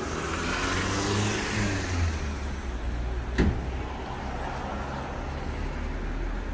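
City street traffic with a steady low rumble. A car passes close about a second in, engine and tyres swelling and then fading, and a single sharp knock comes about halfway through.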